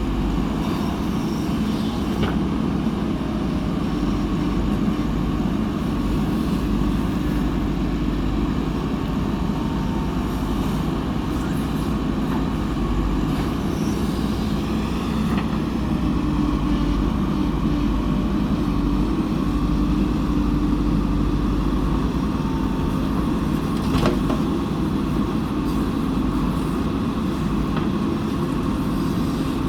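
Backhoe loader's diesel engine running steadily under work, with one sharp knock about 24 seconds in.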